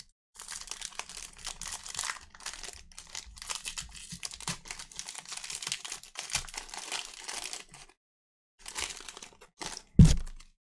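Trading-card pack wrappers crinkling and tearing as packs are opened, in a long crackly stretch followed by a shorter one after a brief pause. A single loud low thump comes near the end.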